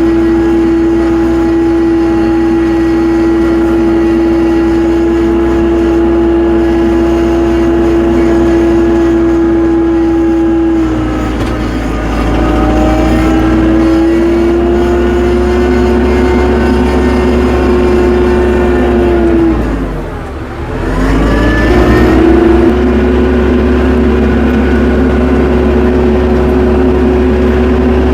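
Tractor engine running steadily at high revs; its pitch sags briefly about 11 seconds in, then drops sharply near 20 seconds in before climbing back to speed.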